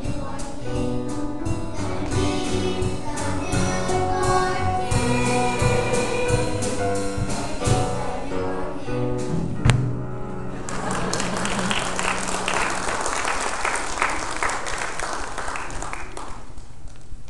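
A choir singing with instrumental accompaniment and a steady beat, ending on a sharp final accent about ten seconds in. The congregation then applauds for several seconds, tailing off near the end.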